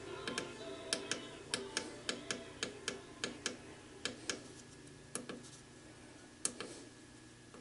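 Front-panel push buttons of a MYPIN TA4 PID temperature controller clicking as they are pressed again and again to step the temperature offset setting. About a dozen sharp clicks, some in quick pairs, around three a second at first and then slower, stopping about two-thirds of the way through.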